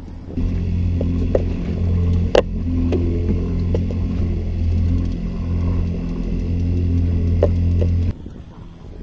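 Boat engine running steadily, a deep even hum, cut short near the end. A few sharp knocks on the boat sound over it, the loudest about two and a half seconds in.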